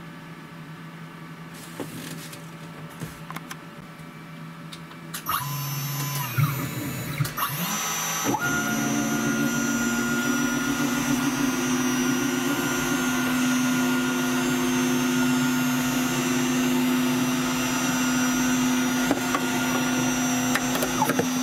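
A CNC router's high-speed spindle, set to 20,000 rpm, starts up about five seconds in. From about eight seconds in it runs with a steady whine and hum while a 2 mm diamond-cut carbide cutter mills through 2 mm FR4 glass-fibre board.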